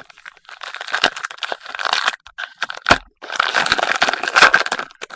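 Trading-card packaging being crinkled and torn open in two stretches, with one sharp knock between them.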